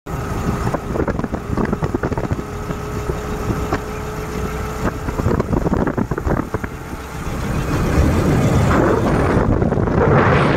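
Wind buffeting the microphone over a Bajaj CT 110X motorcycle running at road speed, with a steady rush of air and engine that grows louder in the last couple of seconds.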